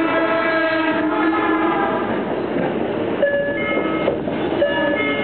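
Toshiba IGBT-VVVF inverter of a Tokyo Metro 05 series train heard inside the car, its stacked whine falling in pitch as the train slows, breaking into shorter steady tones near the end.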